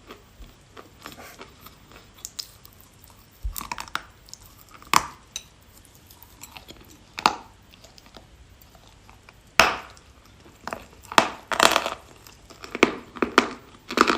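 A person biting and chewing hard, dry pieces of edible clay close to the microphone. Irregular crisp crunches come a few seconds apart at first, with a sharp bite near the middle and a quick run of crunches near the end.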